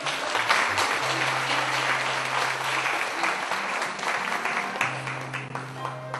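Audience applauding, with music playing underneath and a low held note heard twice.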